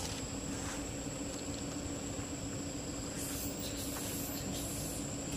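Steady background hiss with a constant high-pitched whine and a low hum underneath; a louder high hiss rises about three seconds in and lasts nearly two seconds.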